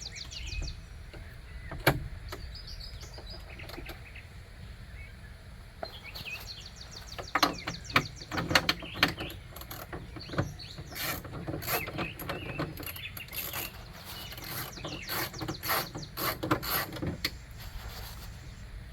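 Hand ratchet and metal tools clicking and knocking in irregular bunches, busiest in the second half, while the clamp bolts holding the window glass to the regulator are loosened so the glass can seat when it is rolled up.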